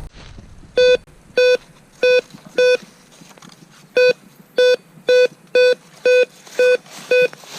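Metal detector beeping repeatedly over a buried target, about two short beeps of the same pitch a second, with a short pause midway; the strong repeated signal marks a large metal object, here a piece of iron.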